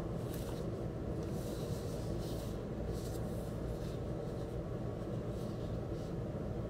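Plastic shrink-wrap on a double vinyl LP crinkling in a few short, faint rustles as the record is handled and turned over, mostly in the first few seconds and twice more near the end. A steady low rumble runs underneath throughout and is the loudest thing.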